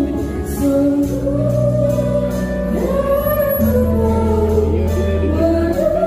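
A woman singing into a microphone with a live band: electric bass, keyboard and drums. The voice holds long notes over sustained bass notes.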